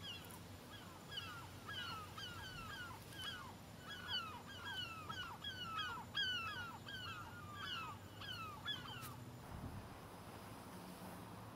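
A flock of birds calling: many short, falling calls overlapping one another, stopping abruptly about nine seconds in.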